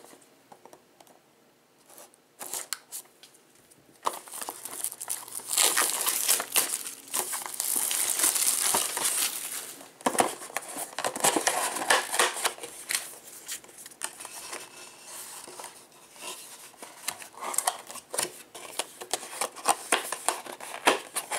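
Plastic shrink wrap being torn and crinkled off a sealed trading-card box, after a few light taps. The crinkling and tearing starts about four seconds in, is loudest and densest for about six seconds, then gives way to scattered rustling and clicks as the box is opened and handled.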